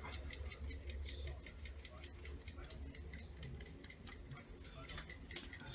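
Aerosol can of electrical contact cleaner being shaken, rattling faintly in quick, even ticks, several a second.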